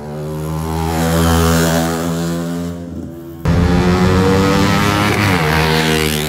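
Supermoto motorcycle engines running on the track. The sound builds over the first second, jumps suddenly louder about halfway through, and drops in pitch near the end as a bike goes by.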